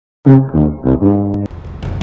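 Comedy sound effect of four low, buzzy horn-like notes in quick succession, the last held longest. Background music comes in near the end.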